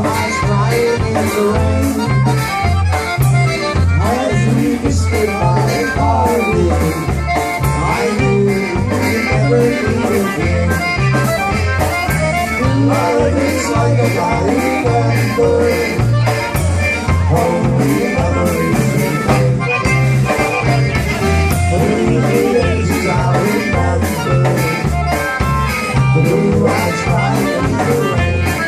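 Live polka band playing a slow country song, with a low bass line stepping between notes on a steady beat under the melody.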